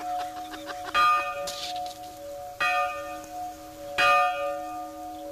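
Church bell tolling: three strikes about a second and a half apart, each leaving a long, steady hum that rings on between strokes.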